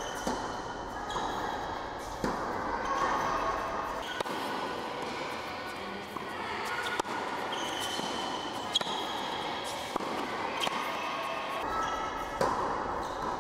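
Tennis ball being struck by a racket and bouncing on an indoor hard court during a rally: sharp pops, about one every second and a half to two seconds in the second half, echoing in a large hall.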